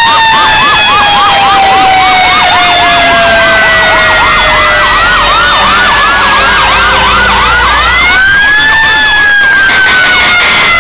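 Fire engine sirens sounding together. One gives a long wail that falls slowly in pitch, then winds back up about eight seconds in and starts falling again. Another yelps rapidly, about four cycles a second.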